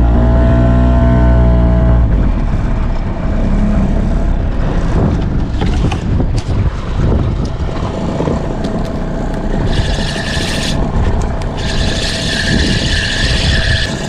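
Small boat's outboard motor running, easing to a lower, rougher note about two seconds in, with a steady whine carrying on under splashy noise. A higher hissing whirr comes and goes over the last few seconds.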